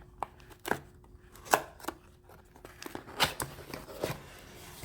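Package being opened by hand: a series of sharp, separate clicks and taps, the loudest about a second and a half in, with a quick pair a little past three seconds.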